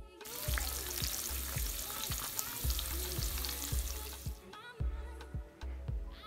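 Eggs frying in a pan, a steady sizzle that cuts off about four seconds in, over background music with a steady beat.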